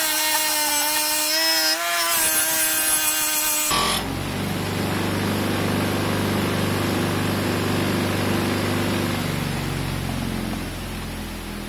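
Bench grinder with a buffing wheel polishing a brass bell: for the first few seconds the metal against the spinning wheel gives a squealing tone that shifts in pitch, then at about four seconds the squeal stops and the grinder's steady rushing hum carries on, fading near the end.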